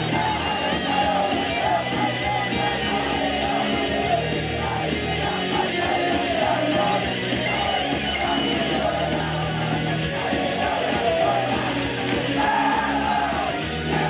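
Live idol-group pop-rock song played loud through a venue's sound system, with female voices singing the melody over a steady beat and bass line.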